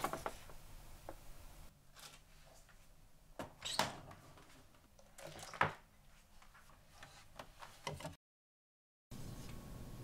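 Plastic salad spinner whirring and winding down, followed by a few light sharp knocks of kitchenware on the counter.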